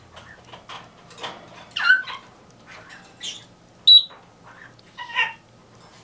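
Birds calling: a string of short separate calls and squawks, several sliding in pitch, one about two seconds in and the loudest a sharp high note about four seconds in.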